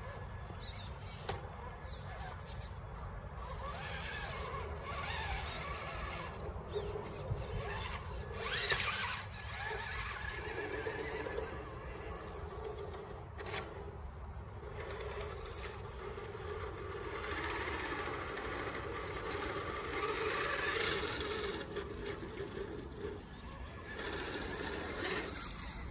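Electric motors and gearboxes of RC scale rock crawlers whining as the trucks crawl over a boulder on a dirt trail, with the pitch shifting as the load changes.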